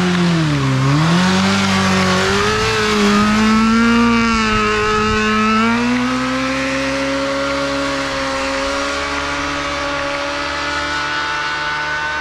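Honda CBR1000RR inline-four engine held at high revs through a rolling burnout, its note dipping and wavering as the clutch and throttle are worked, with the hiss of the spinning rear tyre on the asphalt. About halfway through the tyre hiss fades and the engine note steadies, slowly climbing.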